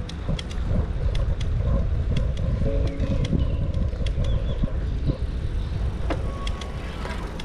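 Bicycle riding along a paved path: a heavy, buffeting low rumble of wind and rolling noise on the microphone, with frequent sharp clicks and rattles from the bike.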